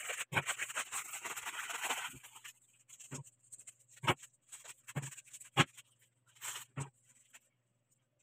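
Plastic noodle-seasoning sachet crinkling for about two seconds, then a handful of separate short taps and shakes as the seasoning is tipped onto a dry instant-noodle block in a plastic bowl.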